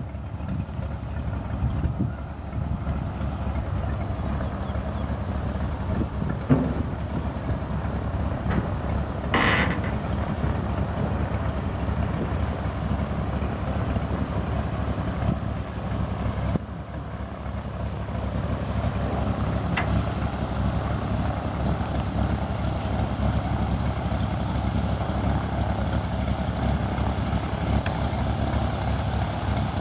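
Single-engine floatplane's piston engine and propeller running steadily at low taxi power on the water, a constant low drone. A brief sharp rushing noise about nine seconds in.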